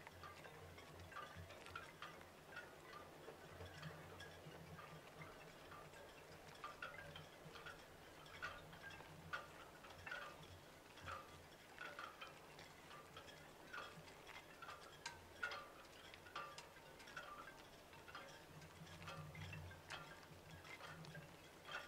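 Faint chime-like tones, a few scattered notes a second at irregular times, over a low steady hum.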